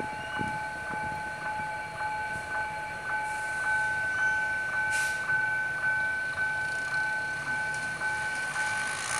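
Level-crossing warning alarm sounding with two steady held tones that pulse about three times a second. Underneath it runs the low rumble of a diesel locomotive, strongest at the start.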